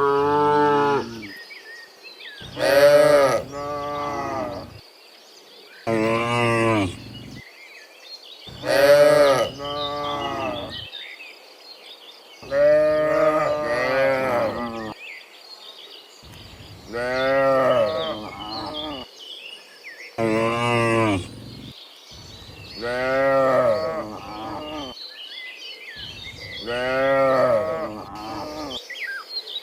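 Cows in a herd mooing one after another: about a dozen long moos, each a second or two, with short gaps between them.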